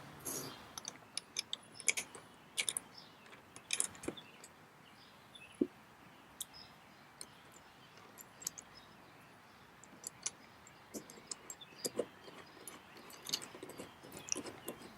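Small stainless steel screws, washers and lock nuts clicking and clinking as they are handled and fitted by hand, in scattered light clicks with a quieter stretch in the middle.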